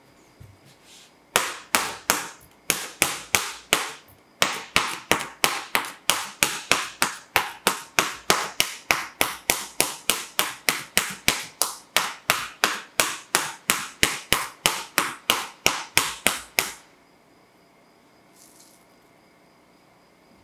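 A wooden skewer piercing plastic wrap stretched tight over a bowl of egg whites: a long series of sharp pops, about three a second, stopping suddenly about three-quarters of the way through. The holes let the egg whites age for macarons.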